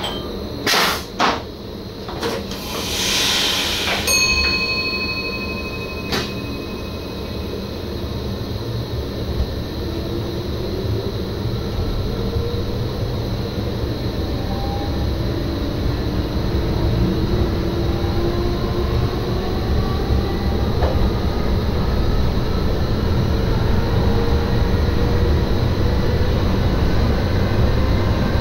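NS SGM Sprinter electric multiple unit heard from the driver's cab: two loud knocks and a hiss of air in the first few seconds, a steady electronic tone for about two seconds, then the running noise builds slowly while the traction motors' whine rises in pitch as the train picks up speed.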